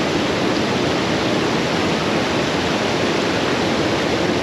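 Steady rush of fast-flowing river water, an even loud roar with no breaks.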